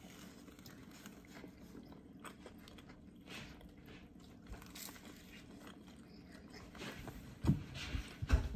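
A person chewing a mouthful of battered sweet and sour chicken, with faint wet mouth clicks. A few louder thumps come near the end.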